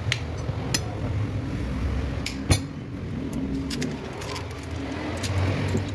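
A hammer and hand tools tapping and clinking on a Toyota Vios alternator's aluminium housing as it is taken apart, with a sharp knock about two and a half seconds in. A steady low hum runs underneath.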